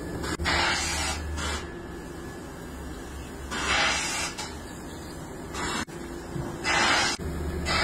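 Several short hissing, tearing bursts, each about half a second, as a long strip of tread rubber for tyre retreading is pulled out and handled, over a steady low workshop hum.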